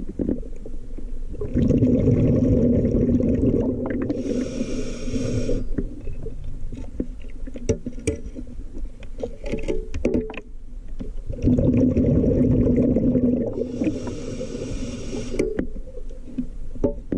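Scuba diver breathing through a regulator underwater: two long exhalations of rumbling bubbles, each lasting about four seconds and roughly ten seconds apart, with small clicks and knocks in between.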